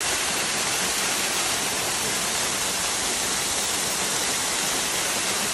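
Waterfall pouring into a pool: a steady, even rush of falling water with a strong high hiss.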